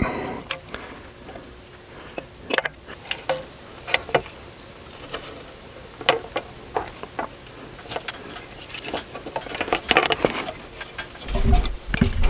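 Scattered small metallic clicks and clinks of the outboard's aluminium ignition plate and its coils and points being handled and lifted off the power head. A couple of duller, heavier knocks come near the end.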